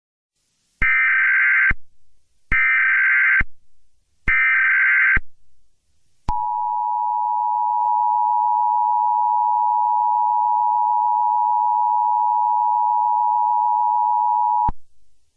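Mock Emergency Alert System tones: three short bursts of warbling SAME header tones, then the steady two-tone attention signal, which is held for about eight seconds and cuts off sharply. The attention signal marks the start of an alert message.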